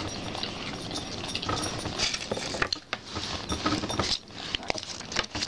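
Scattered small clicks, taps and rustles of plastic toy capsules, a toy figure and foil wrappers being handled on a table.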